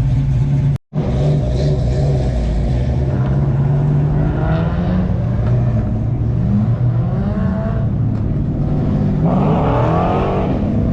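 A car engine running steadily, broken by a brief dropout to silence about a second in. Its pitch rises and falls several times, most strongly near the end, as the engine is revved.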